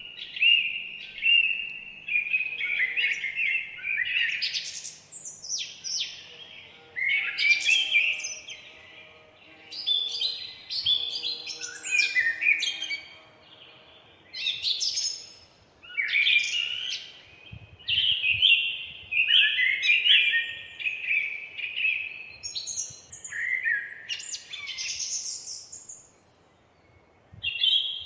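Several songbirds singing in a forest, rapid chirping and warbling phrases overlapping one another, with short lulls about halfway through and just before the end.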